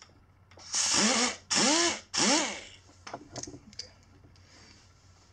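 Air die grinder with an abrasive surface-conditioning disc, given three short squeezes of the trigger as it touches up the last gasket residue on the aluminium cylinder base surface. Each burst is a rush of air with a whine that rises and falls as the tool spins up and winds down. A few faint clicks follow.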